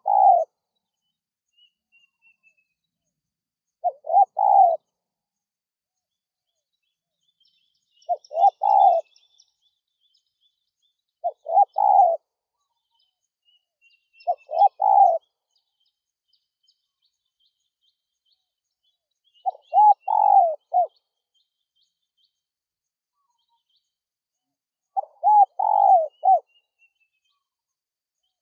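Spotted dove (tekukur) cooing: seven short phrases of several low coos each, repeated every three to five seconds. Faint high chirps of small birds sound between them.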